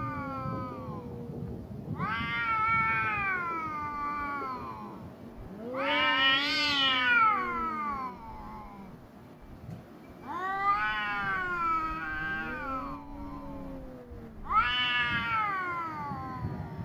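Stray cats yowling at each other in a territorial standoff, the drawn-out threat calls that come before a cat fight. Long wavering wails rise and fall in pitch, about five of them a few seconds apart, answered by a lower, slower yowl.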